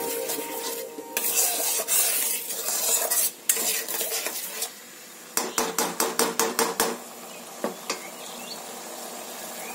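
A spatula stirring and scraping thick yogurt gravy around a hot pan, with a low sizzle. There is a stretch of steady scraping early on. A quick run of sharp scrapes and taps comes about five and a half to seven seconds in.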